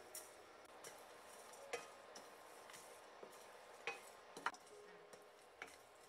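Wooden spoon stirring whole spices dry-roasting in a stainless steel pan: a faint scraping rattle of seeds, with a few sharp clicks of the spoon and spice pieces against the pan. The loudest click comes about four and a half seconds in.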